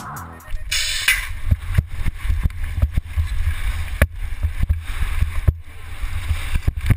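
Wind buffeting a helmet-mounted GoPro's microphone as a mountain bike races down a dirt 4X course, with a brief hiss about a second in and repeated knocks from the bike and trail.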